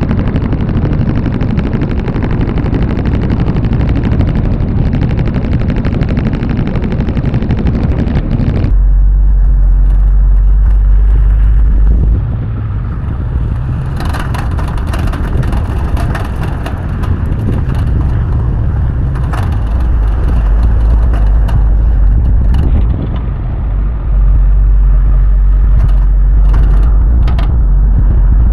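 Jet ski running at speed over open water, its engine buried under heavy wind buffeting on the microphone. About nine seconds in the sound changes abruptly to a deeper, rumbling wind roar with scattered crackles.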